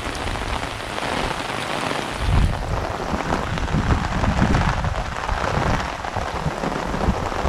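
Rain falling steadily on a shallow river and its stony bank: a dense, even hiss of drops on water, with low rumbles about two and four seconds in.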